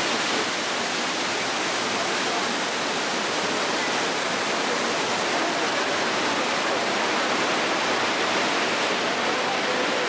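Waterfall rushing steadily, an even, unbroken sound of falling water.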